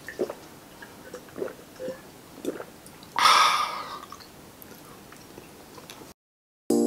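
A person gulping down a drink of lemonade, a string of soft swallows, then one loud breathy exhale about three seconds in.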